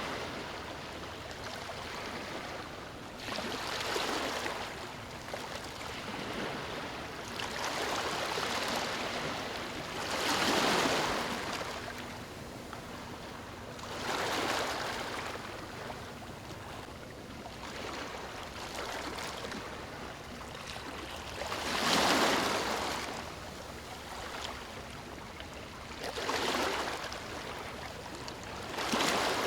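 Ocean waves breaking on a shore: a steady wash of surf with a wave surging up and falling back every few seconds, about seven in all, the heaviest breaks about a third and three quarters of the way through.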